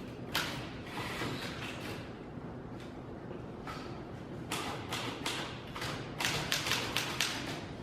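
Typewriter keys striking in uneven bursts: a few keystrokes at first, a lull, then a quick run of keystrokes in the second half.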